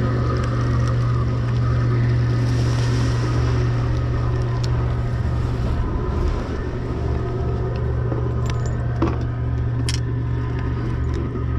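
A boat's engine running steadily, a low even hum. A few sharp clicks come in the second half.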